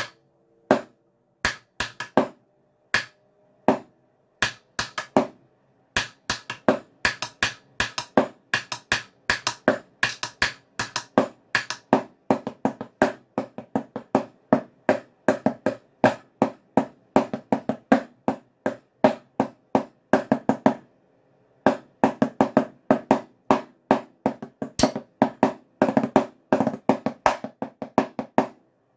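Wooden drumsticks playing a snare drumline cadence on a tunable drum practice pad: accented strokes, gallops and fast sixteenth-note runs. A few spaced strokes open it, then a dense stream of strokes runs on, with a short break a little after two-thirds of the way through.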